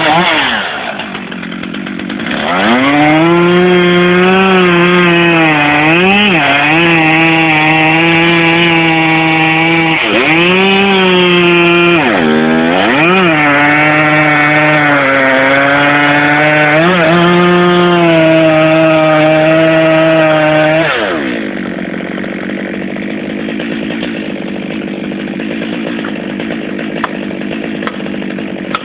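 Chainsaw revving up and cutting wood at full throttle, its pitch sagging briefly several times as the chain bites into the cut. About two-thirds of the way through it falls back to a steady idle.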